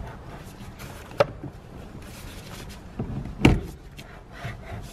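Wrench tightening and torquing the steering wheel's centre nut while the wheel is held against it: low handling noise with two sharp clicks, one about a second in and a louder one about three and a half seconds in.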